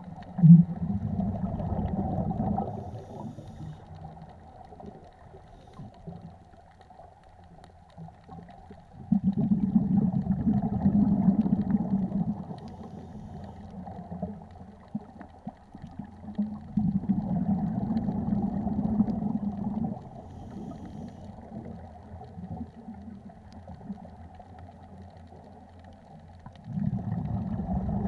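Scuba breathing underwater: exhaled air bubbling out of a regulator in muffled, rumbling bursts of two to three seconds, about eight seconds apart, with quieter stretches between breaths.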